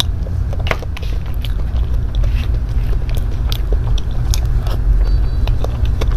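Close-miked eating of soft cream-filled cake: wet mouth smacks and chewing, with a few light clicks of a spoon, over a steady low rumble.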